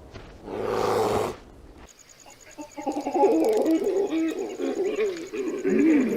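A short rough animal growl, then a run of wavering, warbling animal calls that bend up and down in pitch.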